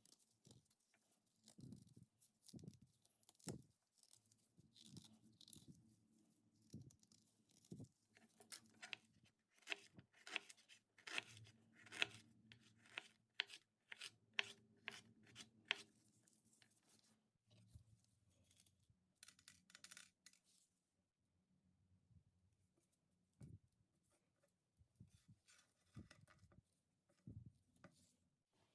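Faint food-prep sounds of ingredients being peeled and cut by hand: a run of short tearing and crisp cutting strokes, quickest and loudest in the middle, with sparser, quieter ones later.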